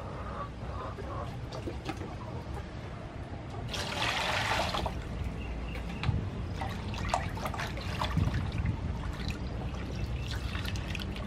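Squid being washed by hand in a large aluminium basin of water: water sloshing and splashing, with a brief louder rush of water about four seconds in.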